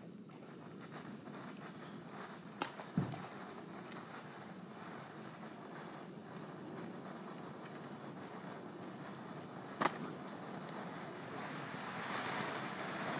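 Cone firework fountain burning: a steady hiss of spraying sparks, broken by a few sharp pops, that swells louder near the end.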